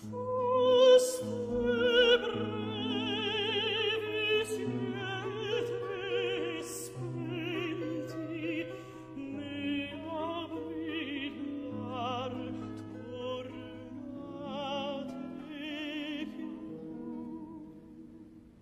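Operatic singing with strong vibrato over a sustained orchestral accompaniment, fading out near the end.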